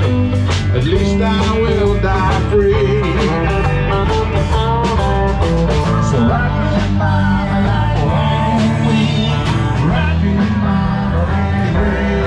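Rock music with a steady drum beat, a heavy bass line and a bending melody line.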